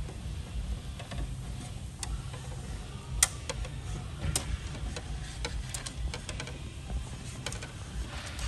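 Scattered light clicks and taps as wiring is handled and fed through the inside of a plastic motorcycle Tour-Pak lid, over a steady low rumble.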